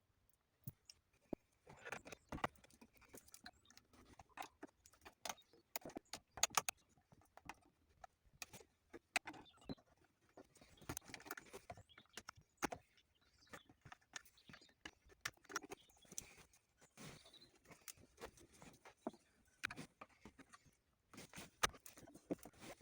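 Metal hand tools and parts clinking and tapping, with scattered irregular clicks and short rustles, as a steering column is being taken apart.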